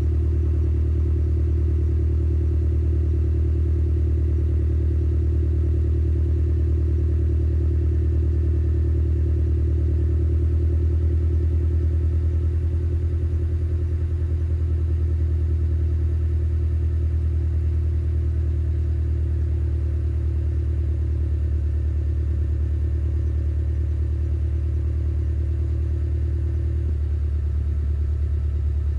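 Exhaust of a Subaru Levorg's CB18 1.8-litre turbo flat-four through an STI Performance Muffler, idling steadily with the deep, uneven boxer burble ("dorodoro") that this muffler brings out. The note shifts slightly near the end.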